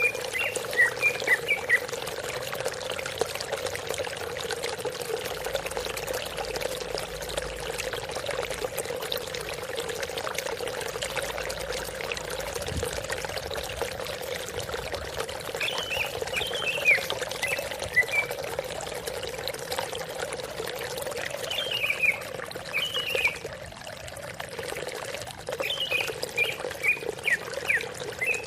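Greater green leafbird (cucak ijo) singing in short bursts of quick, high chirping notes near the start and several times in the second half, over steady running water.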